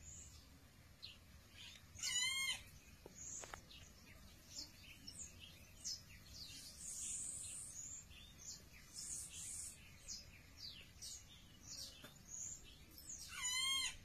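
Birds calling: many short, high chirps and whistles, with two louder calls, about two seconds in and again near the end, each a quick run of wavering notes falling steeply in pitch.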